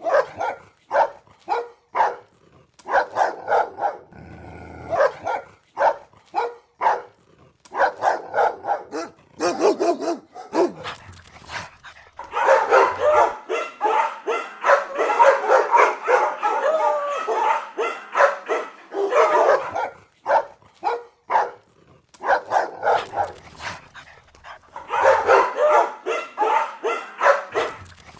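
Dogs barking repeatedly in quick short barks, often overlapping. There is a dense run of continuous barking about halfway through and another near the end.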